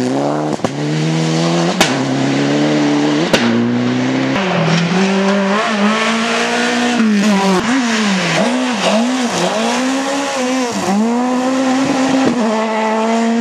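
Rally cars at full throttle on a gravel stage, first a Mitsubishi Lancer Evo, then a Lada. The engines rev hard and the pitch keeps dropping and climbing again through lifts and gear changes. Three sharp cracks come in the first few seconds.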